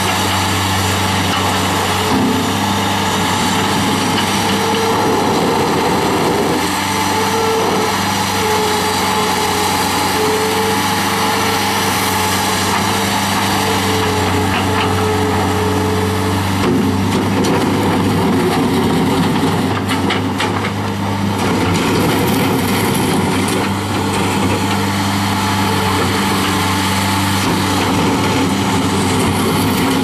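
2001 New Holland LS170 skid steer's four-cylinder turbo diesel running steadily under load as the loader works a gravel pile. A whine comes and goes in the first half, and gravel crunches and rattles in a stretch about two-thirds of the way through.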